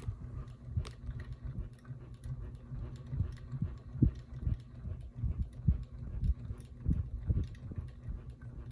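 Ceiling fan running with a steady low hum and irregular low knocks and ticks, a few louder ones about four and seven seconds in: the intermittent noise of a noisy fan, which the owner suspects comes from a loose blade.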